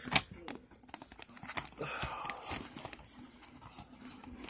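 Hands handling plastic packaging and boxed gear: rustling and crinkling with scattered clicks, and one sharp knock just after the start.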